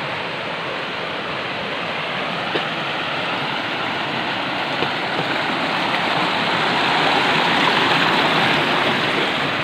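Shallow rocky stream rushing over stones and small cascades, a steady noise of running water that grows a little louder after about six seconds.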